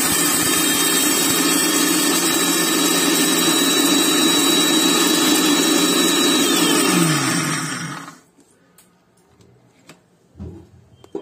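Electric mixer grinder (mixie) running at full speed, grinding dry-roasted dals and whole spices in a small steel jar. About seven seconds in it is switched off and the motor whines down to a stop, followed by a couple of light knocks near the end as the lid is lifted.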